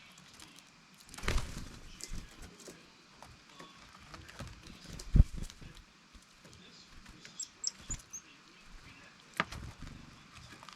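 Small birds fluttering and tapping close to the microphone at a feeding spot, with a sharper knock about five seconds in and a few faint high chirps.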